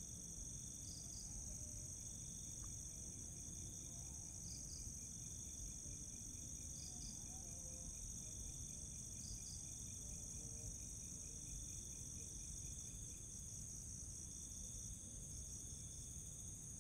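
A chorus of crickets and other insects: steady high-pitched trills, with a double chirp repeating about every two and a half seconds and runs of fast ticking, over a low hiss and rumble.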